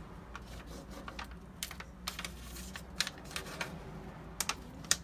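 Light, irregular clicks and crackles of a rub-on furniture transfer's backing sheet being handled and peeled back from a glass panel by fingertips, with a few sharper snaps in the second half.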